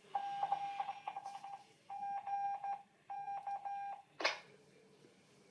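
Electronic beeping at one steady pitch in three groups of about a second each, each a held tone broken into quick rapid pulses, followed by a brief swept chirp about four seconds in.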